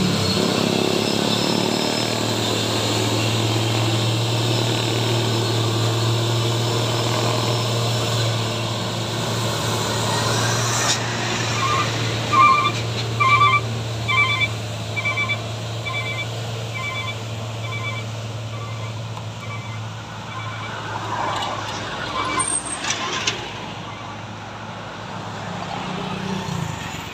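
Heavy diesel truck engines running steadily under load as a tractor unit tows a container trailer truck up a steep hill, the drone fading as they pull away. Partway through there is a run of short electronic beeps in pairs, getting fainter, and near the end a few brief sharper hisses.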